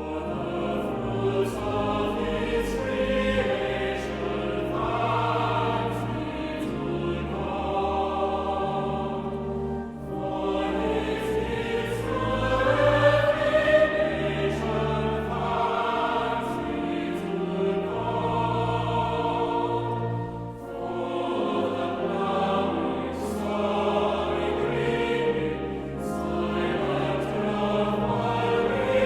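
A choir singing a hymn with instrumental accompaniment, phrase after phrase, with short breaths between lines about ten and twenty seconds in.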